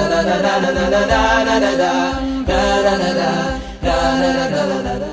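Background vocal music: a chant-like a cappella melody over a held low note, fading out at the very end.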